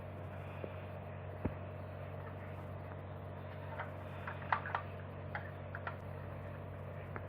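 Faint light clicks and taps of a 1:24 die-cast toy car being handled, a few scattered and a small cluster of them about four to six seconds in, over a steady low electrical hum.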